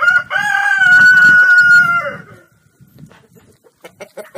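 Rooster crowing: one long crow of about two seconds that holds a steady pitch and drops off at the end, followed by a few short, sharp sounds near the end.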